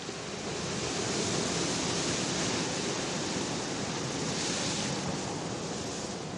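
Ocean surf: waves washing onto a rocky shore, a steady rushing hiss that swells about a second in, with a brighter wash of a breaking wave about four and a half seconds in.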